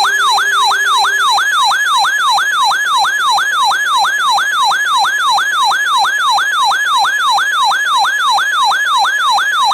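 Electronic siren-like alert tone on a NOAA Weather Radio weekly test: a loud, rapid whoop that falls in pitch about three times a second, held steady for about ten seconds. It starts right after the digital header data bursts and cuts off abruptly.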